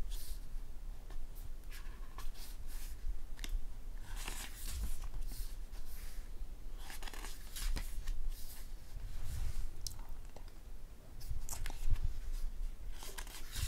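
Pages of a glossy photo book turned one after another by hand: a string of short paper rustles and flaps, with a few light handling clicks.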